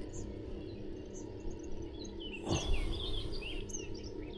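Small birds chirping in quick short calls over a steady outdoor background hum, with a brief rushing noise about two and a half seconds in.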